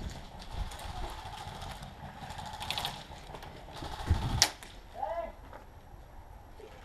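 Airsoft gunfire: a quick string of shots a little under three seconds in, then a single sharp crack about a second and a half later, the loudest sound.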